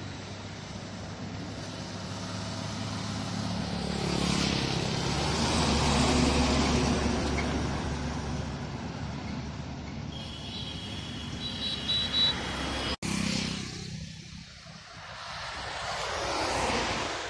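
A loaded multi-axle tipper truck passing on a highway: its diesel engine and tyres swell to a peak about five seconds in, then fade as it pulls away. After a sudden break, a car passes with a tyre whoosh near the end.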